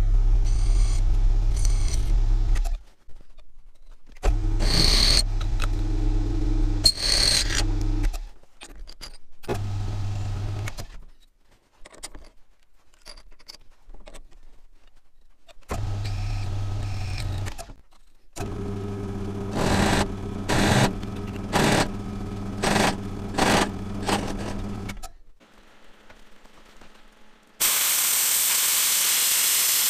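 Pillar drill motor started and stopped several times as holes are drilled through steel flat bar held in a machine vice, with short squeals from the bit cutting and a run of about six sharp surges as it bites. Near the end a plasma cutter's arc starts with a loud steady hiss as it cuts the steel.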